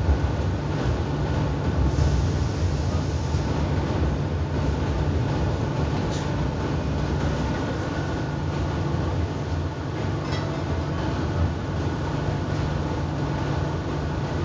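Interior running noise of a Renfe Civia electric commuter train heard from inside the carriage: a steady low rumble with a faint steady whine above it and an occasional faint click.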